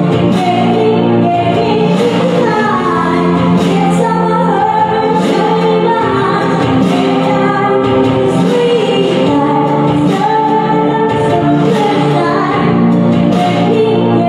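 A woman singing a slow song into a microphone over music with a steady beat, amplified through the bar's speakers.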